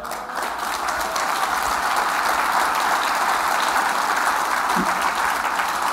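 Audience applauding steadily, starting at once and easing off slightly near the end.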